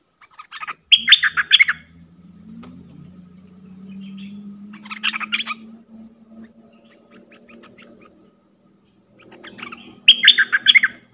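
Bulbul (merbah) calling in three short bursts of quick chirping notes: about a second in, about five seconds in, and near the end.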